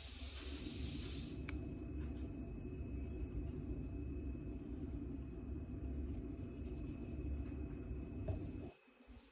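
Handling noise: fingers gripping and turning an aluminium-cased Geiger counter, a steady low rubbing rustle that cuts off abruptly near the end.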